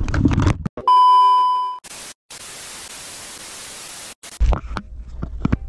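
An edited-in transition effect: a steady high beep lasting about a second and fading out, then about two seconds of flat static hiss like a dead TV channel, which starts and stops abruptly. Outdoor rumble comes before and after it.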